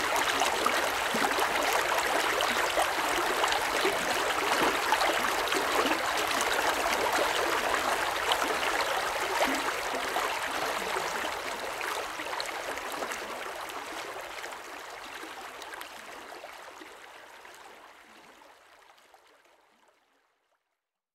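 Flowing stream water, a steady rushing and trickling that fades out gradually over the second half to silence just before the end.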